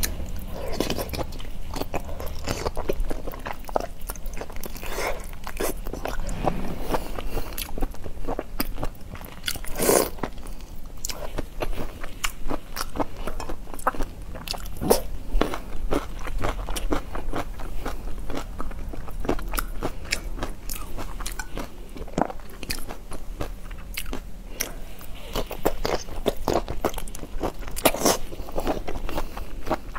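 Close-up crunching and chewing: shell-on shrimp in chili sauce bitten and chewed, a dense, irregular run of crackly bites and wet mouth clicks, one especially loud crunch about a third of the way in.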